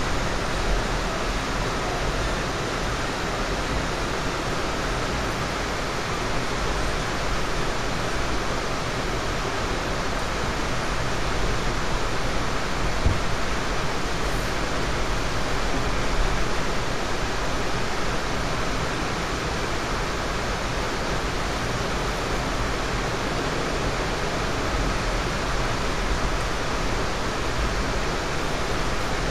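Steady rushing noise inside a moving passenger train car running at speed, with a low rumble from the wheels on the track.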